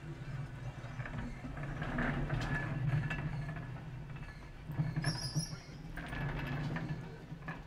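Heritage electric tramcar running on its rails: a low rumble of motor and wheels that swells and eases, with a brief high-pitched note about five seconds in.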